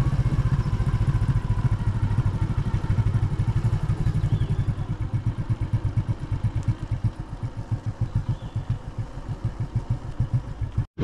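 Motorcycle engine running with a steady low throb, which turns into a slower, uneven pulsing about halfway through; the sound cuts off abruptly just before the end.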